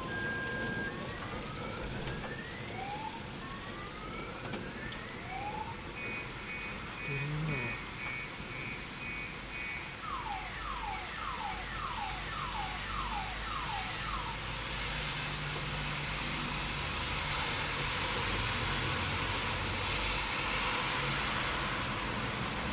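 A car alarm cycling through its tones: a steady two-tone note, a few slow rising whoops, a run of rapid beeps, then falling chirps about two a second, stopping about 14 seconds in. A steady hiss then builds for the rest of the time.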